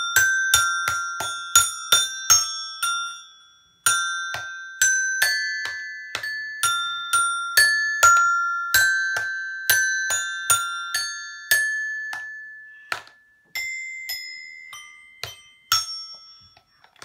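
A toy xylophone's metal bars struck one at a time with a mallet by a small child, giving bright ringing notes at an uneven pace of about two a second, with a short pause about three seconds in.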